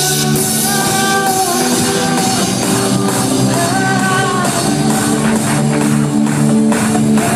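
Loud live trance music over a concert sound system: sustained synth chords with light percussion and a woman singing long held notes.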